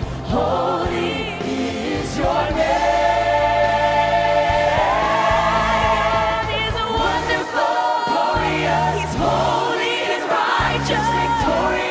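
Vocal ensemble singing a gospel song in harmony, with long held notes that waver in pitch over a steady low instrumental accompaniment.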